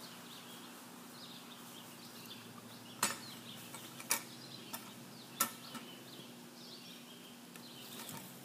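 A heavy maul striking a chestnut oak log section to split it: three sharp blows roughly a second apart, with a few lighter knocks between them. Birds chirp throughout.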